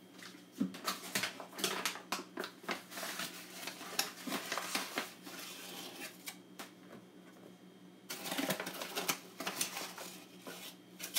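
Rustling, tapping and light clattering of flour being measured out and tipped into a plastic bowl, in two busy spells with a lull between.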